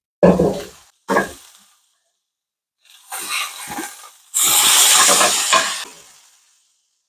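Steak frying in butter with garlic cloves in a frying pan. After two short knocks in the first second, the sizzling starts about three seconds in and grows loud as the steak is turned over with tongs and the butter is spooned over it, then dies away.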